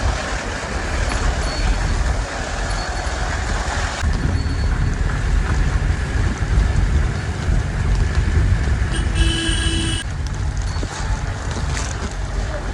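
Off-road jeep driving, its engine and road noise making a steady low rumble. A horn sounds once, briefly, about nine seconds in.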